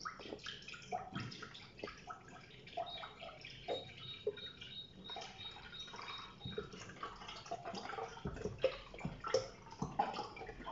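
Whole milk glugging and splashing as a one-litre carton is poured into a stainless steel pot, with irregular gurgles from the carton's spout.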